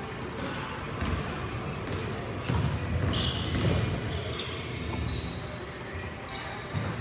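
A basketball being dribbled on a gym floor during play, with short high squeaks of sneakers on the court.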